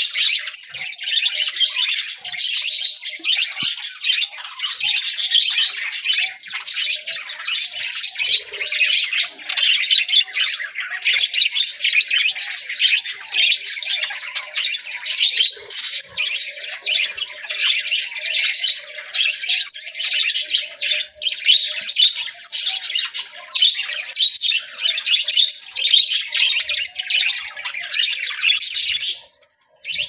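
A flock of budgerigars chattering without a break, a dense mass of fast, high chirps; it breaks off abruptly near the end.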